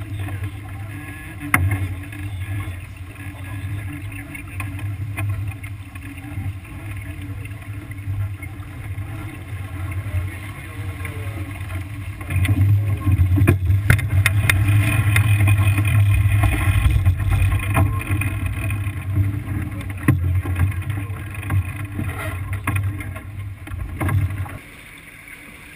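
Wind buffeting the microphone and water rushing along the hull of a sailboat under way, as a low steady rumble that grows louder about halfway through and falls away shortly before the end. A few short knocks from the deck gear sound through it.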